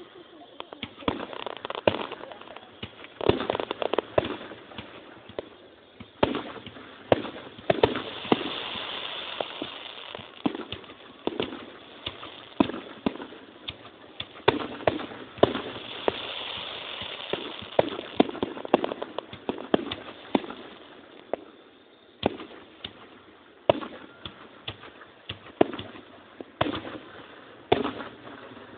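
Aerial fireworks going off: irregular bangs, some in quick clusters, with stretches of crackling between them, heard through a phone microphone.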